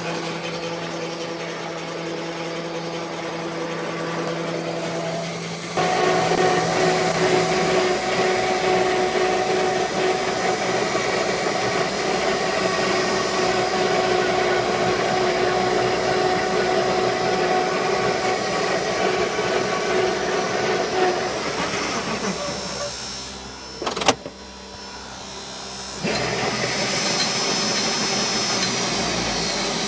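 ME1004 48-volt DC electric motor of a converted riding mower running with a steady whine, stepping louder about six seconds in. It eases off for a few seconds, with one sharp click, then runs up again, and a high whine falls in pitch near the end.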